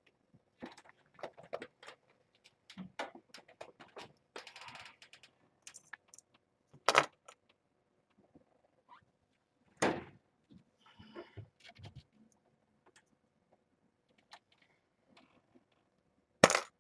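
Clatter of things being handled: scattered clicks and knocks with some rustling, and three loud sharp bangs spread through.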